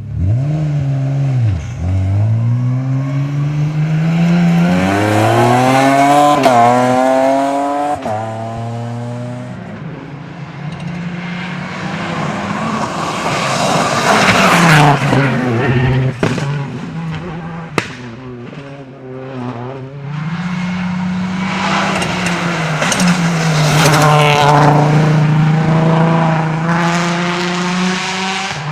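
Rally cars at full throttle on a stage, engines climbing in pitch through the gears with drops at each upshift, mixed with tyre and road noise. A single sharp crack sounds about 18 seconds in.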